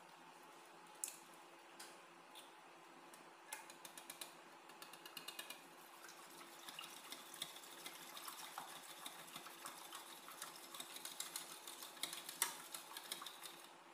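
Wire whisk clicking and scraping against the inside of a metal pot as powdered bechamel sauce mix, cornstarch and milk powder are stirred together. The clicks are light and rapid, thickening into a quick rattle through the middle and later part, with one sharper knock near the end.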